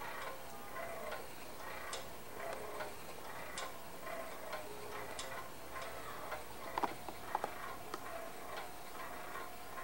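Wind-up baby swing's clockwork mechanism ticking steadily as the swing rocks. A few sharper, louder clicks come about seven seconds in.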